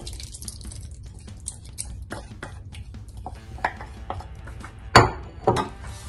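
Spoon scraping and clinking in a mixing bowl as a liquid mixture is poured into flour and stirred, with two sharp knocks of a bowl about five seconds in.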